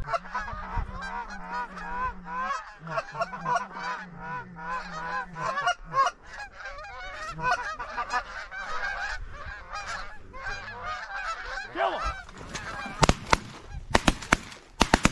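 A flock of Canada geese honking, many birds calling over one another in a constant chatter of short honks. A few sharp clicks or knocks near the end.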